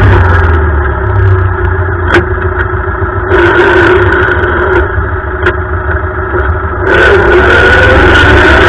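All-terrain lawn tractor's engine running as it drives over leaf litter. The sound eases off and thins in the middle and comes back fuller about seven seconds in. A couple of sharp clicks or knocks come around two and five and a half seconds in.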